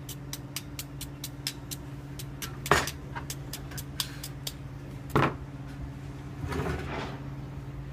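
Work sounds of copper soldering: a string of faint fast ticks, two sharp knocks about two and a half seconds apart, and a short rustle near the end, over a steady low hum.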